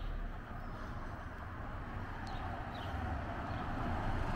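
Street ambience: a steady hum of road traffic with a low rumble, growing slowly louder toward the end, with a few faint high chirps.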